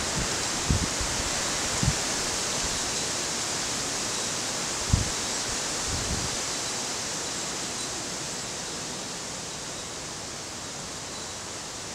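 Steady rushing background noise with a few short, low thumps, the strongest about five seconds in.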